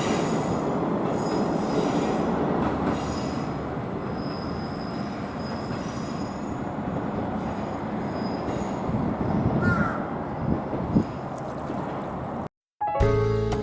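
Train running along the track, its wheels squealing with high, wavering tones during the first few seconds before the squeal fades to a steady rumble. Near the end the sound cuts out and music begins.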